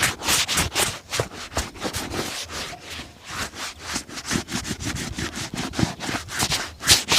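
A leather shoe being rubbed in quick back-and-forth strokes during shoe shining, about three to four strokes a second.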